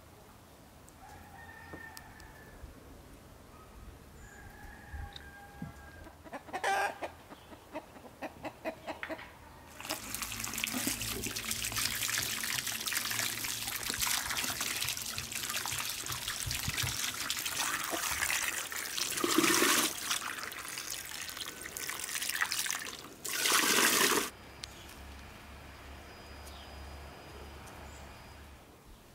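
Water from a garden hose running and splashing over hands and into a metal wheel rim as something is washed under it, with two louder splashing bursts near the end. Before the water starts there are a few short chicken calls and a run of light clicks.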